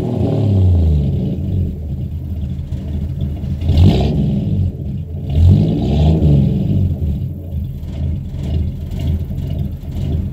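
250 cubic-inch straight-six engine exhaling through a single Flowmaster Super 10 muffler, revved in blips. The revs fall away at the start, a quick rev comes about four seconds in and another just after five seconds, each rising and dropping back to idle.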